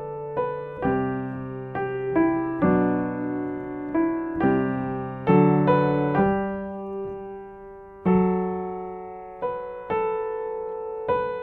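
Piano playing a slow, legato pentatonic piece with the sustain pedal, notes ringing on into one another. One phrase fades out about six seconds in, and a low note about eight seconds in starts the next.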